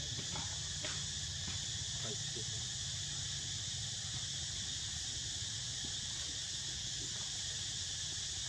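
Steady chorus of insects, a continuous high-pitched drone that holds level throughout, with a few faint ticks in the first couple of seconds.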